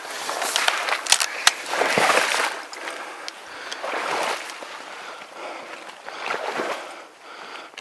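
Small boat being rowed: each stroke swishes and splashes through the water, about every two seconds, with a few sharp knocks against the boat about a second in.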